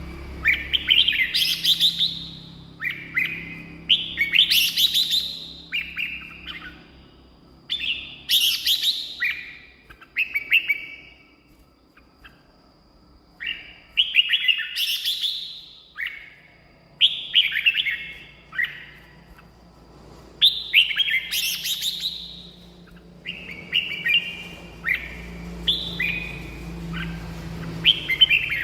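Red-whiskered bulbul singing: a run of short, loud, chirping phrases, one every second or two, with two brief pauses.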